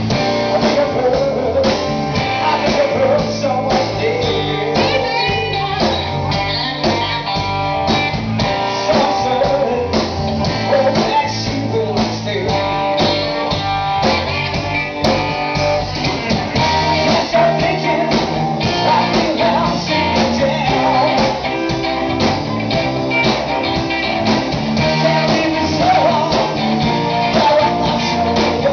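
Live band playing in a pub: electric guitars and drums with a steady beat, and a man singing into a microphone.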